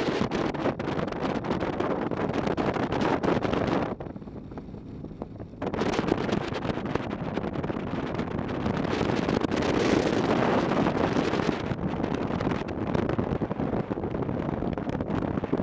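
Wind buffeting the microphone of a camera on a moving touring motorcycle, over the motorcycle's running engine. The wind drops away for about a second and a half a few seconds in, then returns, heaviest near the middle.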